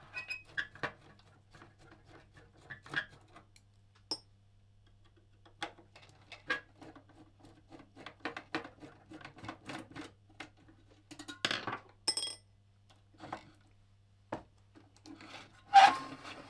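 Metal clicks, taps and scrapes of a pump controller unit being worked loose from a perforated sheet-metal chassis with a screwdriver and by hand. There are louder clattering knocks about eleven seconds in and again near the end as the unit is pulled free.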